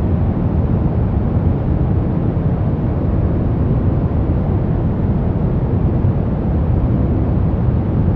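Steady noise track played for relaxation: an even, unchanging hiss with most of its weight in the low end, deep rather than bright.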